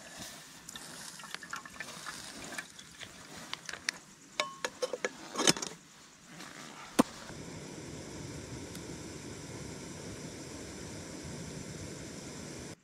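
Milk poured from a plastic pouch into an aluminium camping kettle, with small clicks and two sharp metallic knocks against the kettle. After that comes a steady hiss that cuts off suddenly near the end.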